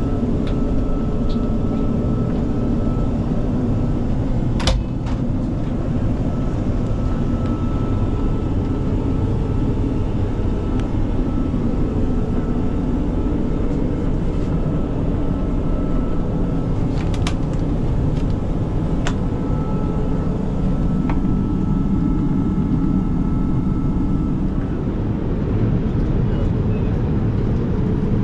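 Steady low rumble of a Boeing 787-9 airliner's cabin, from engine and airflow noise, with a faint steady hum. A sharp click comes about five seconds in, and a few fainter clicks follow later.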